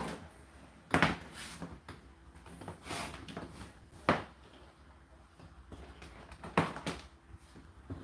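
Indesit IDC8T3 condenser tumble dryer running: a steady low motor hum with four irregular thuds from the turning drum.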